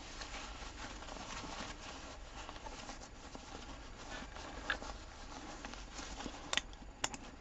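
Fabric of a packed Fox Outdoor buttpack rustling and rubbing as its top is folded over and rolled down by hand. A couple of sharp clicks near the end as the buckles are brought together.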